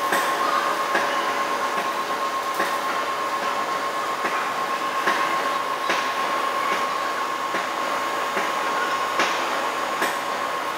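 Heavy-duty Škoda CNC lathe turning a large steel press crankshaft, the tool cutting the spinning steel. A steady high whine runs over the machining noise, with sharp clicks about once a second.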